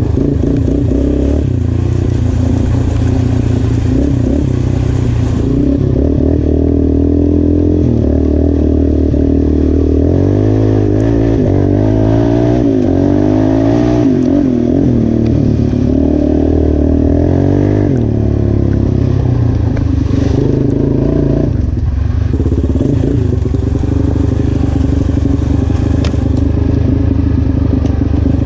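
Yamaha Raptor 350 ATV's single-cylinder four-stroke engine running on a test ride, freshly rejetted with a 150 main jet and a cleaned carburetor. Its pitch rises and falls as the throttle is worked, easing off briefly a couple of times in the last third.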